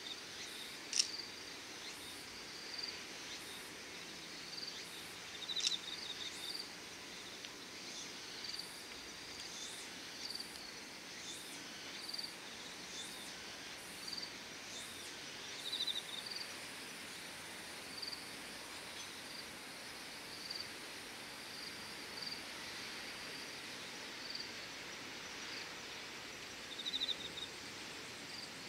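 Insects chirping outdoors at dusk: short high chirps come every second or two, with a few brief trills, over a steady hiss. Two sharp clicks stand out, about one and five and a half seconds in.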